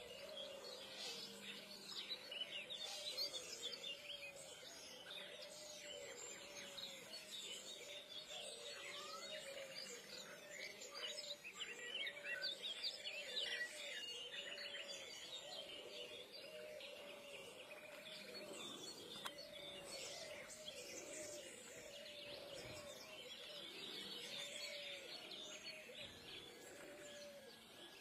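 Faint dawn birdsong: many small birds chirping and twittering, over a lower call repeated about once a second.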